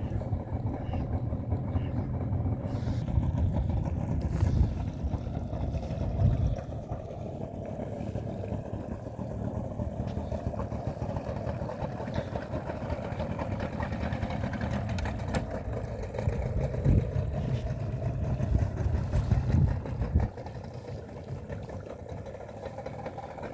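Motorboat engine running steadily, its low rumble heavier for the first six seconds and again from about sixteen to twenty seconds in, then easing.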